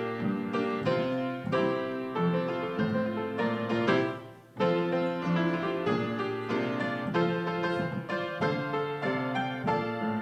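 Grand piano played solo, chords and melody notes ringing and decaying, with a brief break in the playing about four seconds in.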